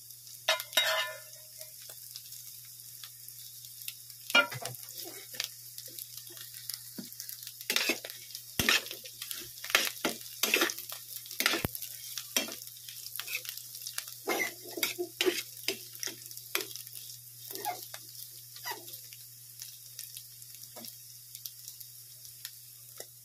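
Pork belly strips and onions sizzling in a stainless steel frying pan, stirred with a metal utensil. The utensil scrapes and knocks against the pan at irregular moments over a steady hiss of frying.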